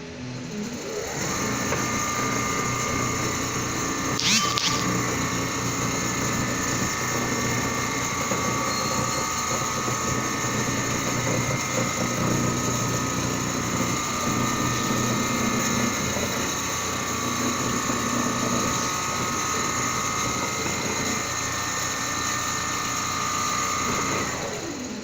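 Large CNC sewing and quilting machine running: a steady mechanical din with several fixed motor whines. It comes up about a second in, and there is a brief high swish about four seconds in.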